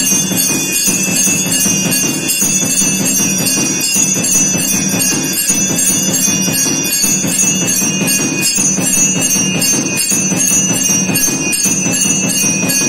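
Temple bells ringing continuously during the aarti (lamp offering) of a puja, a loud unbroken din of rapid strikes.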